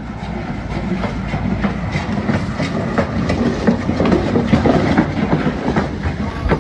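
SUV driving close by with a damaged front end, giving a loud, rough clatter of irregular knocks and scraping over a low rumble.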